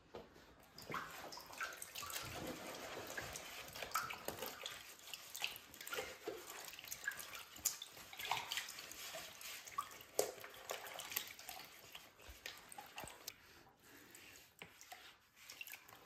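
Water sloshing and splashing in a plastic basin as a vacuum cleaner's sponge filter is squeezed and scrubbed by gloved hands. The splashes are irregular and grow quieter over the last few seconds.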